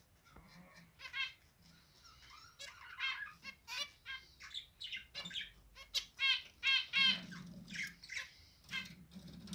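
Zebra finches singing and calling: a rapid string of short notes, sparse at first and coming thick and fast from about two and a half seconds in.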